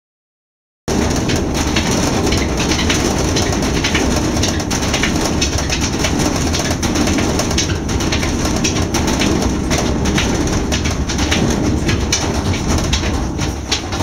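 GE top-loading washing machine running its cycle: a loud, continuous churning noise full of rapid irregular clicks and knocks, uneven enough to sound like a gasoline engine with a misfire. It cuts in suddenly about a second in.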